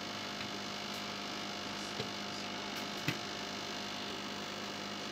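Steady electrical hum over a hiss of background noise, with two faint clicks about two and three seconds in.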